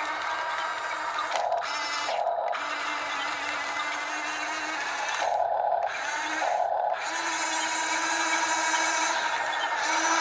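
Electric gear motors of a Huina 1/14 scale RC excavator whining as it works, the whine changing briefly a few times as functions start and stop.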